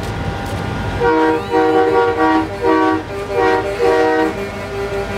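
Semi-truck air horn with several tones sounding together, blasting a rapid series of short honks starting about a second in. Near the end a single horn tone keeps sounding on and off over street and crowd noise.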